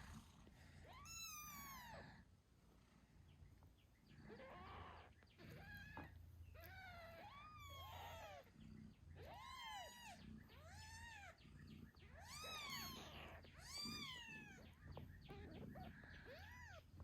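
Eight-day-old British Shorthair kittens meowing: about a dozen thin, high-pitched squeaky meows, each rising then falling in pitch, coming roughly once a second.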